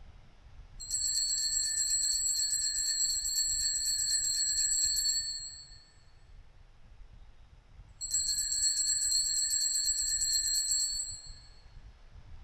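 Altar bells shaken in two bursts of rapid, high ringing, each about three to four seconds long, marking the elevation of the consecrated chalice.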